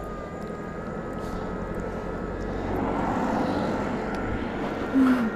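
Yuneec Ego Cruiser electric skateboard carrying two riders, its motor whining in steady high tones that creep slightly upward as it gathers speed. Under the whine is the rumble of the wheels on asphalt, which swells in the middle. A short voice sound comes near the end.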